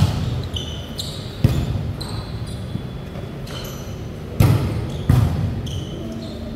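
Volleyball rally: four sharp smacks of hands and arms on the ball, the first two about a second and a half apart, then two close together a little past the middle, each echoing in the large gym hall. Short high sneaker squeaks on the court come between the hits.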